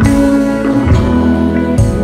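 Background instrumental music, with a new chord or note struck about once a second.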